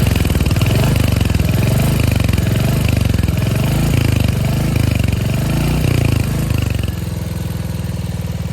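Royal Enfield Hunter 350's single-cylinder engine and exhaust, blipped up and down several times, then settling to a steady idle about seven seconds in. The owner says something rattles in the exhaust when it runs and blames a catalytic converter that has come loose inside the bend pipe.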